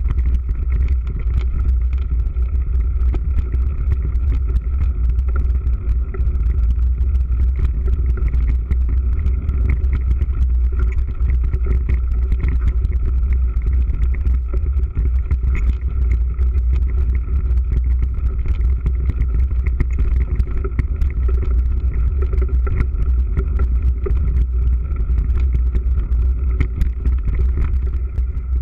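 Mountain bike ridden fast over a rough dirt and grass track: a steady low wind rumble on the camera's microphone, with tyre noise and many small rattles and knocks from the bumps.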